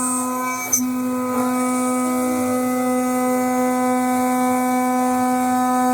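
CNC milling machine spindle running steadily while cutting a flange part, giving a constant pitched hum with a stack of overtones. A single click sounds a little under a second in.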